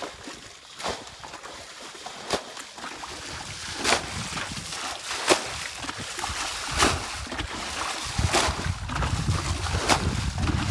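Muddy canal water being bailed out by hand with a bucket, a splashing throw about every second and a half as each scoopful is dumped.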